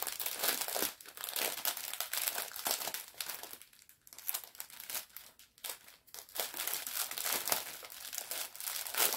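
Plastic packaging of a diamond painting kit crinkling as it is handled, with a short quieter spell about halfway through.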